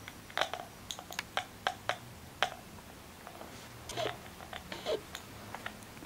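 Two small plastic lids clicking and knocking together as a budgie taps one against the other. The taps are light and irregular, with a lull around the middle before another cluster near the end.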